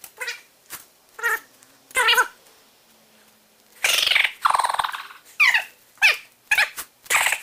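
An animal calling over and over: about ten short, high-pitched calls, several falling in pitch, with a longer, harsher call about four seconds in.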